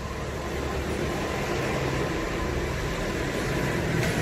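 A steady engine rumble mixed with even background noise, with no distinct knocks or changes.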